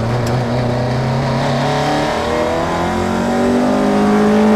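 Opel Ascona A rally car's engine heard from inside the cabin, holding a steady note for about a second and a half, then rising steadily in pitch as the car accelerates.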